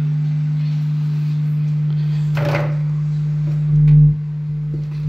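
Klipsch SW-350 subwoofer, just repaired after its switching power supply shorted, playing a steady low test tone. The tone swells louder with a deep thump about four seconds in.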